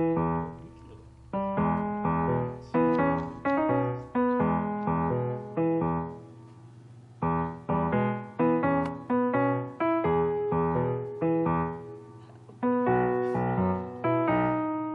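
Background piano music: a slow melody of struck notes and chords, each dying away, with a short lull about five seconds in.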